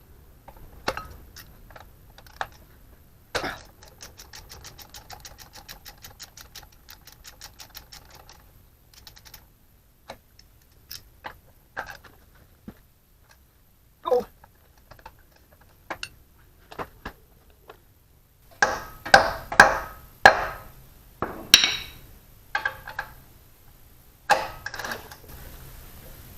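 Hand tools on a seized brake-hub nut: a socket ratchet clicking rapidly, about nine clicks a second, for roughly five seconds a few seconds in, with scattered light metal clinks around it. Near the end comes a cluster of loud metallic clanks as the tool works the stuck nut.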